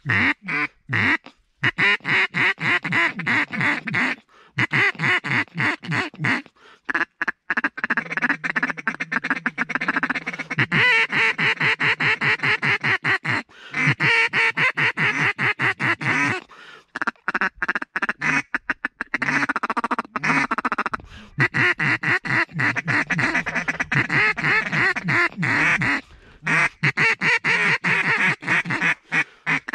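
Duck call blown in long runs of loud quacks and fast strings of short notes, calling to ducks over the marsh.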